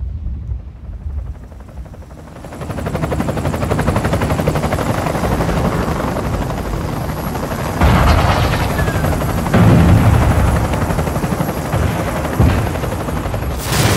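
Helicopter rotors chopping fast and steadily, fading in about two seconds in and swelling louder around the middle. A sudden loud bang hits near the end.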